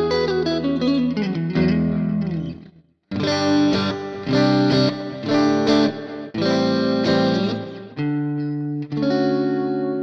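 Electric guitar, a PRS SE Silver Sky, played on a clean tone through a ToneLib GFX amp-sim preset (stacked Deluxe Reverb and Dumble models): chordal phrases with ringing, held notes, a brief stop about three seconds in, and sustained chords near the end.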